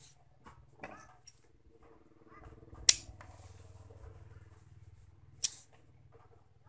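Large scissors snipping an insulated electrical wire: two sharp clicks, the first about three seconds in and the loudest, the second about two and a half seconds later. A faint low hum runs underneath in the middle.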